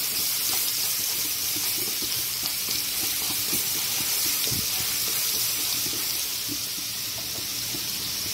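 Garlic-ginger paste sizzling in hot oil with mustard and cumin seeds in a non-stick pan: a steady hiss with light crackling, easing slightly near the end.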